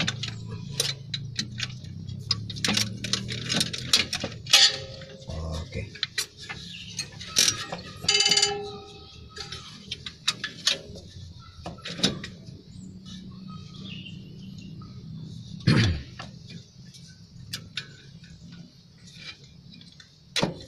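Hand tools and metal engine parts clinking and tapping on an opened-up diesel engine, in irregular sharp clicks, with a low steady hum underneath.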